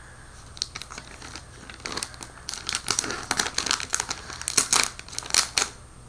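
Plastic shrink wrap being peeled and pulled off a new keyboard: irregular crinkling and crackling that starts about half a second in, grows busier after about two seconds and stops just before the end.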